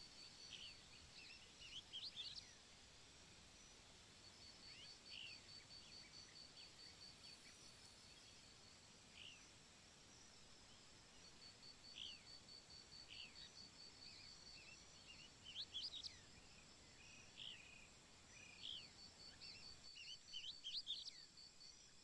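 Faint outdoor ambience: small birds give short, sharp chirps every few seconds, clustered around a couple of seconds in, near four-fifths of the way in and near the end. A fast, evenly pulsed high insect trill comes and goes in several stretches.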